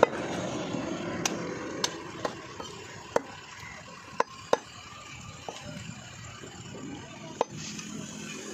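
Butcher's curved knife chopping goat meat on a wooden log block: scattered sharp knocks, about nine of them and irregularly spaced.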